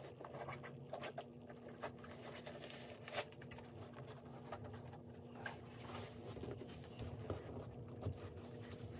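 Faint rustling, scuffing and light knocks of a sneaker being handled and pulled on over a sock, with one sharper knock about three seconds in. A steady low hum runs underneath.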